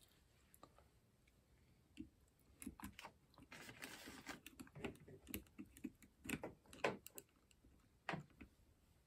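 Small clicks and taps of metal carburetor parts being handled and fitted together by hand on a Solex 28 PICT-1 carburetor, starting about two seconds in, with a brief rustling scrape near the middle.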